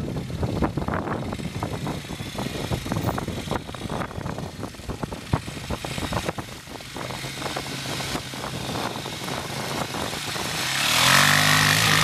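ATV engine running at low speed through a shallow puddle, with crackling splashes from the tyres. About ten seconds in, the engine revs up hard and loud as the quad climbs a sandy hill.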